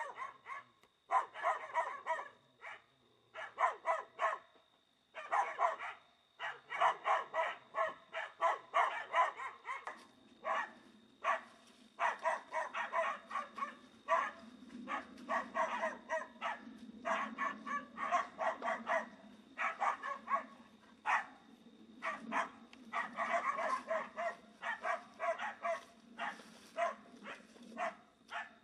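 A dog barking over and over in quick runs of short barks, with brief pauses between the runs.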